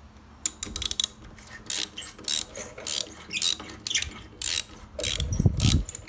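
Ratchet wrench with a 5 mm hex bit clicking in quick, irregular runs as it backs out the threaded brake pad pin on a Harley-Davidson front caliper. A low rumble comes in about five seconds in.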